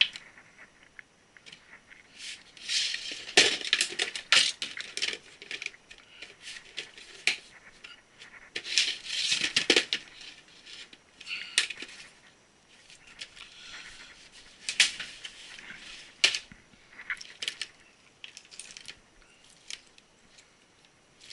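SATA cables and small parts handled and sorted by hand: irregular clicks, clinks and rustles in bursts, with short pauses between them.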